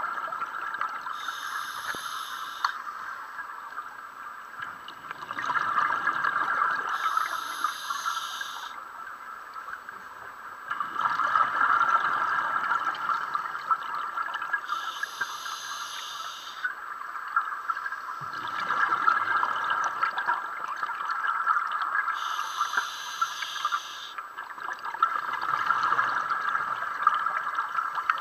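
Scuba diver breathing underwater through an open-circuit regulator: a short hiss on each inhale, then a longer rush of exhaled bubbles, about one breath every seven seconds, four breaths in all.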